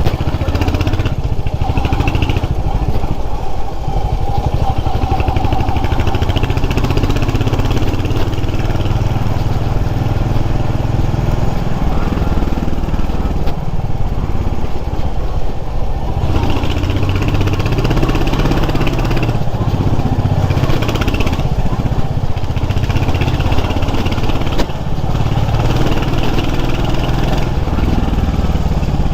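Motorcycle engine running steadily while under way, its note shifting a little through the ride.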